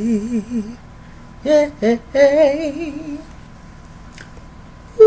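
A man singing a cappella in a high voice with heavy vibrato: a held note that trails off within the first second, then a short run of melismatic sung notes, and a brief note at the very end.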